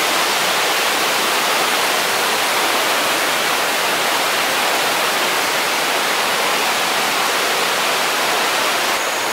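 River water rushing steadily over rocks, a loud, even wash of sound.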